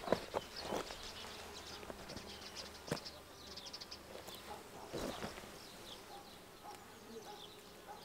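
Honey bees buzzing around an open hive, with a few short knocks as the wooden frame is handled over the box.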